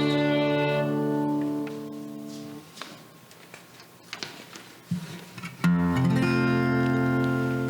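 Acoustic guitar playing sustained chords between sung lines of a worship song. The first chord fades out about two and a half seconds in, and after a brief pause with small clicks a new chord is struck about five and a half seconds in and rings on.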